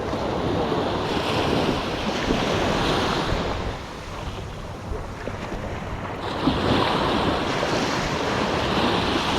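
Surf washing onto the beach, two washes swelling up and falling back, with wind buffeting the microphone.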